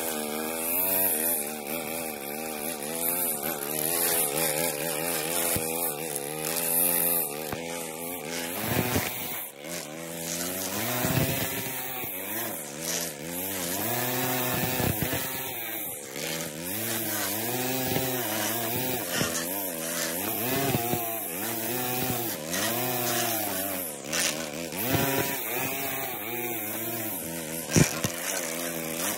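Small engine of lawn power equipment running. Its pitch wavers, then from about a third of the way in rises and falls over and over, roughly once a second, as the throttle is worked and eased.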